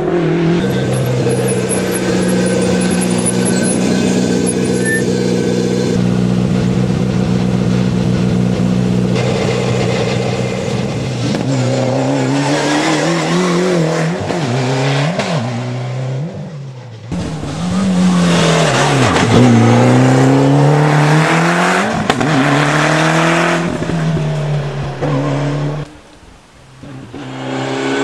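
Rally cars, among them Ford Escort RS Cosworths with their turbocharged four-cylinder engines, racing past on a tarmac stage. For about the first ten seconds the engine holds a steady, high note. After that it rises and falls again and again with gear changes and lifts for the bends, dips away twice as a car goes by, and a new car's engine comes up near the end.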